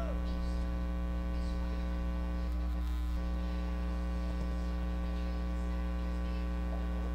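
Steady electrical mains hum: a constant low buzz with many overtones, unchanging throughout.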